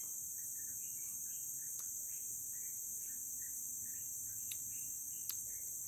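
Steady high-pitched buzz of forest insects, with faint scattered chirps and a few small clicks.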